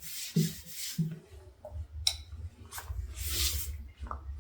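Cloth rag wiping wood stain across a tabletop: several short rubbing strokes.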